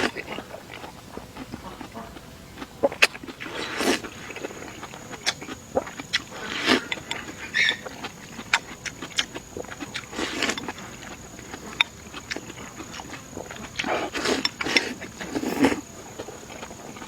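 A person eating noisily: chewing and slurping with short sharp clicks, several louder slurps bunched near the end. A steady high-pitched drone begins about four seconds in and continues, typical of an insect.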